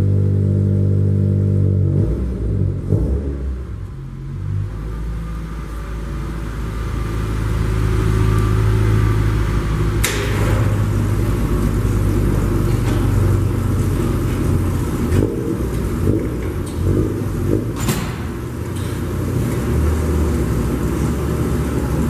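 A car engine running: a steady low hum for the first two seconds, then rougher running, with a few sharp knocks about ten seconds in, about eighteen seconds in and near the end.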